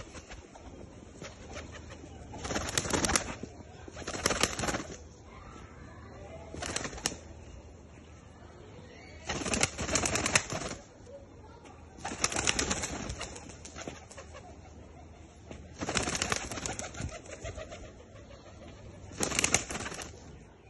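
Ground-tumbling pigeons somersaulting on the ground, their wings clattering in short bursts of about a second, seven times, every two to three seconds.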